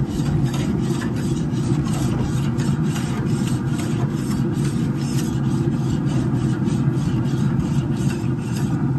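Notched metal scraper blade of a grill brush scraped back and forth over barbecue-sauce-fouled grill grates: a repeated rasping scrape, about two or three strokes a second, over a steady low hum.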